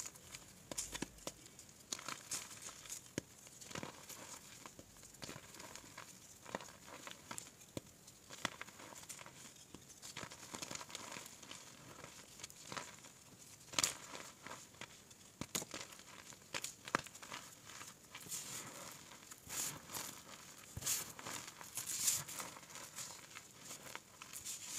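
Hands crushing and crumbling a molded block of reformed gym chalk and squeezing the broken chunks: irregular dry crunches and crackles, with a few louder snaps along the way.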